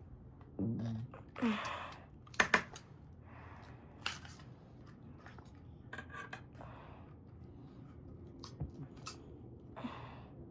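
Cutters snipping through the wires inside a power strip: scattered clicks and short rustles of handled plastic, with two sharp snaps, the loudest sounds, about two and a half seconds in.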